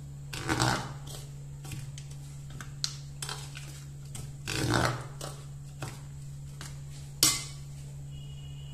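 Steel spoon stirring and scraping a dry, coarse powder mix in a stainless steel bowl, in two main stirring passes with small clinks against the metal. Near the end the spoon is set down in the bowl with one sharp clink.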